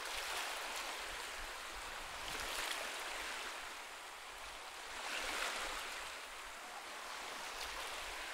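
Ocean waves washing on a shore, a soft hiss of surf that swells and fades about every two to three seconds.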